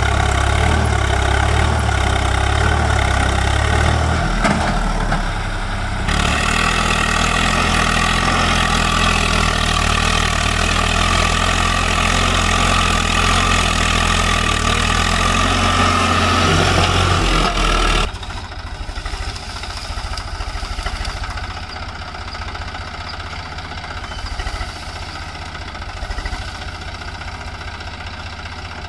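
Tractor diesel engine running loud and steady, with a brief dip about four to six seconds in. About eighteen seconds in the level drops suddenly, and the engine carries on more quietly.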